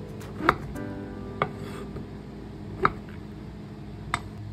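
Cooking utensils knocking sharply against a metal pot, four separate knocks a second or more apart, as pieces of fish are put into hot water.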